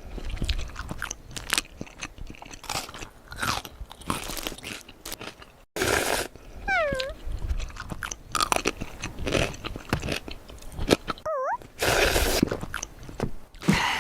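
Close-miked crunchy biting and chewing of snack food: irregular sharp crunches and crackles, mouth-close eating sounds.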